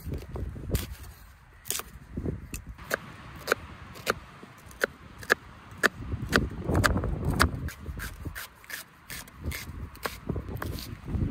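Chef's knife slicing a red onion on a wooden cutting board, a run of irregular sharp knocks as the blade strikes the board. Wind rumbles on the microphone underneath, loudest in the middle.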